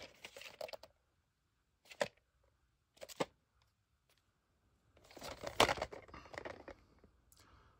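A cardboard VHS tape sleeve handled and turned over in the hand: brief rustling and scraping, two sharp taps about two and three seconds in, and a longer rustle of the cardboard near the end.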